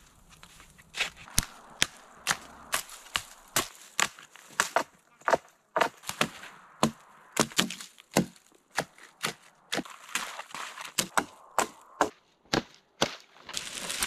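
A hatchet chopping limbs off a downed conifer: a run of sharp, woody chops, about two a second, with a few short pauses.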